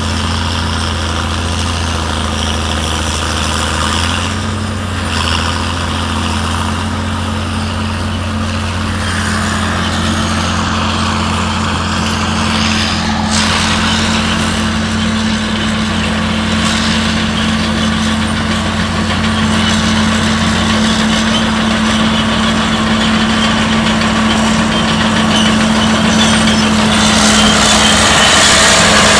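Heavy diesel engines running with a steady low drone. It grows louder over the last few seconds as a vintage crawler tractor drives up.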